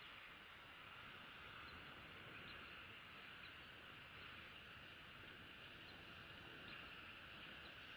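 Near silence: faint, steady outdoor ambience, a high hiss with no distinct events.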